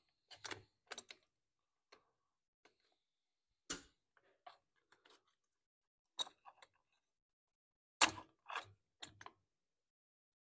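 Scattered clicks and knocks of a plastic air filter housing being handled and pressed into place on a small mower engine, the sharpest near 4, 6 and 8 seconds in, with quiet gaps between.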